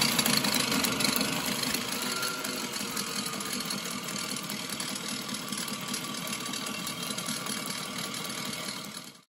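Sailrite Ultrafeed LSZ-1 walking-foot sewing machine stitching through fabric at speed, a steady rapid mechanical chatter. It is a little louder in the first second or two, and it cuts off suddenly near the end.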